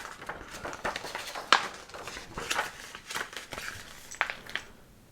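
Small plastic Lego pieces being handled and pressed together: a scatter of light clicks and rustles that dies away near the end.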